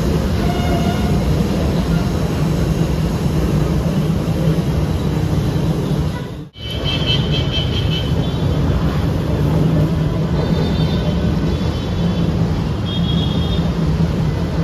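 Manila LRT Line 1 light-rail trains running past on the elevated track, over a steady rumble of city traffic, with a few short high squeals. The sound drops out for a moment about six and a half seconds in, where the picture cuts from one train to another.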